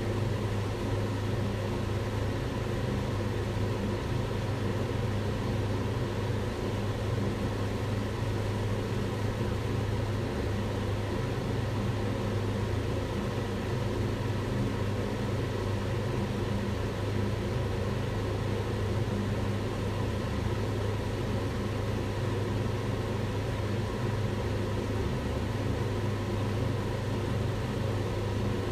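Kitchen range hood extractor fan running steadily: an even rush of air over a low motor hum.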